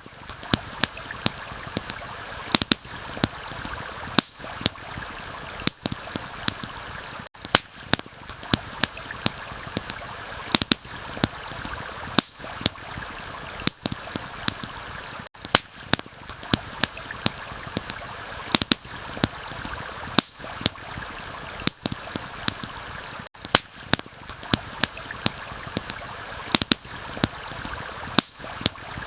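Steady rush of a flowing stream under the frequent sharp crackles and pops of a burning campfire, several pops a second, the pops standing out loudest.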